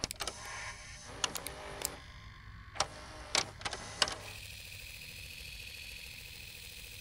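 Scattered sharp mechanical clicks and ticks for about four seconds, then a steady low hum with a thin high whine.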